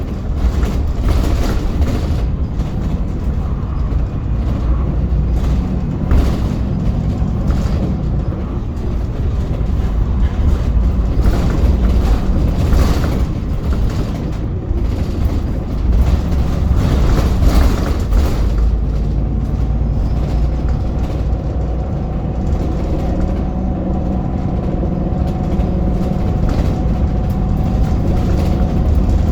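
VDL Pulsar single-deck bus under way, heard on board: a loud low rumble with frequent knocks and rattles. About two-thirds of the way in, a steady whine from the rear-axle differential sets in and holds. This is the unusual diff noise the bus makes.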